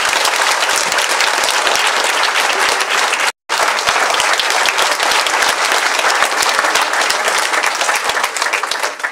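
Theatre audience applauding, dense steady clapping that thins out near the end. There is a split-second total dropout in the sound about three and a half seconds in.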